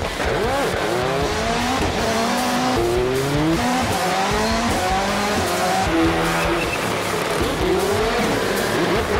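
Rallycross race cars racing, with several engines revving, their pitches rising and dropping over one another as they accelerate and shift.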